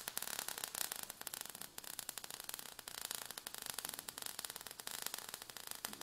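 Crackling, hissing sound effect of burning sparks: a steady, fast crackle of many tiny pops over a faint hiss.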